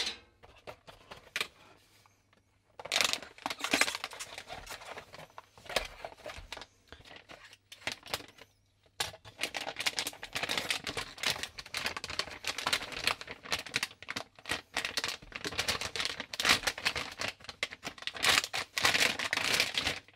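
Crinkling of a metallic anti-static bag as a motherboard is pulled out of it and the bag is peeled away, in irregular rustling bursts that start about three seconds in and keep going, with a brief pause around the middle.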